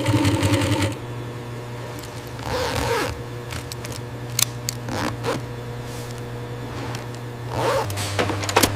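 Steady low hum of factory machinery, with several short scraping swishes and a few sharp clicks over it, loudest in the first second.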